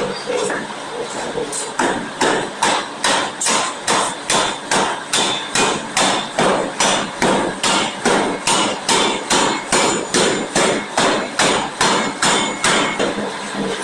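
Steam forging hammer striking in a fast, even run of blows, about two and a half a second, drawing out a forging. The blows settle into their steady rhythm about two seconds in, after a few weaker, irregular knocks.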